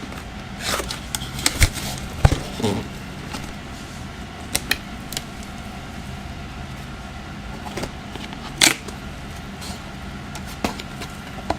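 Scattered rustles, taps and light knocks of packaged stationery items being handled and set down, a few distinct ones about a second and a half in, just after two seconds and near the end, over a steady low room hum.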